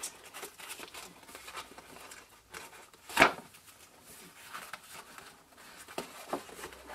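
Ribbon and card being handled: soft rustling and light ticks as mini ruffled ribbon is drawn and wrapped around a folded paper gift bag, with one sharp tap a little over three seconds in.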